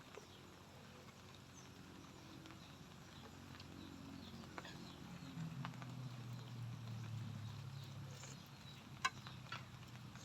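Faint scattered clicks and smacks of someone eating, with one sharper click near the end, over a low steady hum that swells in the middle.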